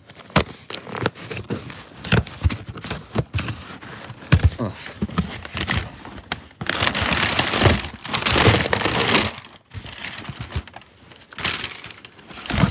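Cardboard box being opened and handled by hand: rustling, crinkling and scraping with many small knocks, and a longer stretch of dense rustling about seven to nine seconds in.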